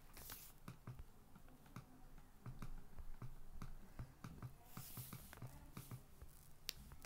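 Faint, irregular clicks and taps, typical of fingers tapping a phone screen while slides are changed. A short hiss comes near the start and another about five seconds in.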